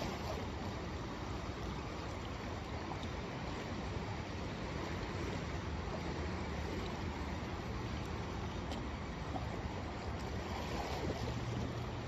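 Sea surf washing steadily, with some wind on the microphone.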